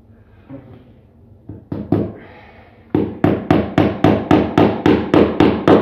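Hammer striking nails into wood: two light taps about a second and a half in, then from about three seconds in a steady run of blows, about three or four a second.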